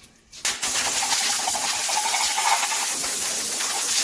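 A loud, steady hiss of a pressurised gas jet, starting abruptly about half a second in and holding even.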